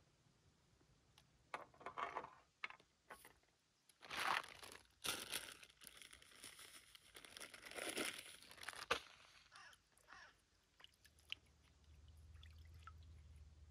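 River water lapping and splashing in small irregular gushes against a rock at the water's edge, faint, loudest a few seconds in and again near the middle, with a sharp click about two-thirds of the way through. A faint steady low hum sets in near the end.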